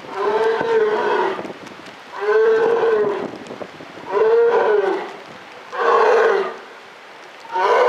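Polar bear calling over and over: five moaning cries, each about a second long and rising then falling in pitch, coming roughly every two seconds.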